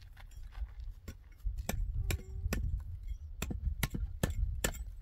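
Sharp, irregular knocks of a hard object striking concrete blocks, sparse at first, then about two or three a second from about a second and a half in. A steady low rumble of wind on the microphone runs underneath.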